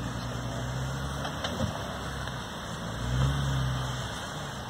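Jeep Wrangler JK Rubicon's V6 engine running at low revs as it crawls over a rock ledge, with the throttle opening briefly about three seconds in.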